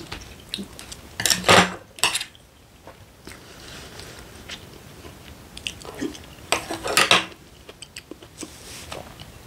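Chopsticks and a spoon clicking and scraping against a plastic food container while someone eats, in two short clusters: one about a second in and another around seven seconds.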